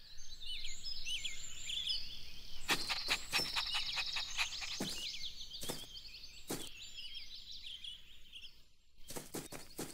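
Garden ambience of small birds chirping and twittering in quick, high, sliding notes, broken by a few sharp clicks.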